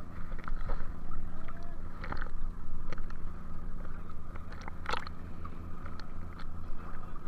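A boat's engine running steadily with a low drone, with scattered sharp knocks and clatter on board, the loudest about five seconds in.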